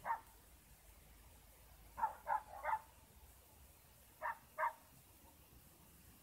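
A dog barking: six short barks, one at the start, then a run of three, then a pair.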